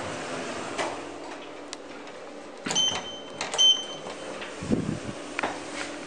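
Two short, identical high-pitched electronic beeps a little under a second apart from a Schindler 3300 elevator's car push buttons as they are pressed, over a steady low hum in the car. A brief low thud follows about a second later.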